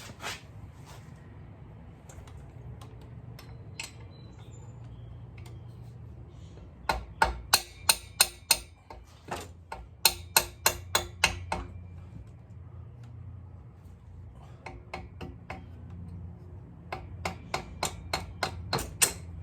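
Ratchet wrench clicking in quick runs of several clicks at a time, with pauses between, as 14 mm cylinder head bolts are turned loose. A low steady hum runs underneath.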